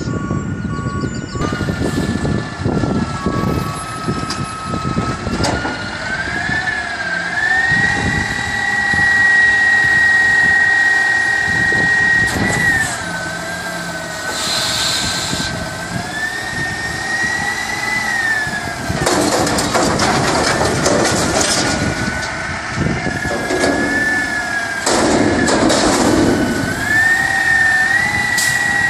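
Front-loader garbage truck's diesel engine revving up and holding high to drive the hydraulics, with a whine that rises and falls as the arms lift a dumpster over the cab. Two noisy bursts of clatter, a second or two each, come in the second half.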